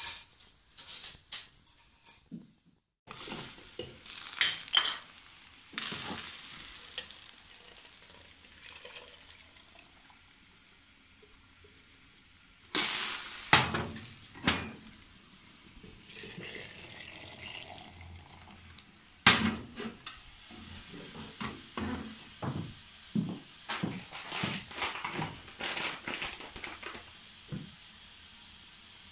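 A wood fire crackling in a stove for the first couple of seconds. Then aluminium teapots and their lids clinking and knocking on a hot wood-stove top, with sizzling, and a few louder knocks about halfway through.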